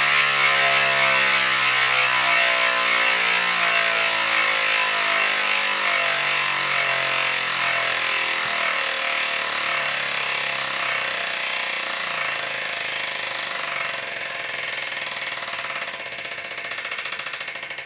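Mavic Instant Drive 360 ratchet freehub of a Cosmic Pro Carbon Exalith rear wheel buzzing as the wheel coasts. Its 40-tooth ratchet clicks so fast that it makes a steady buzz, which slowly falls in pitch and loudness as the wheel slows and starts to break into separate clicks near the end.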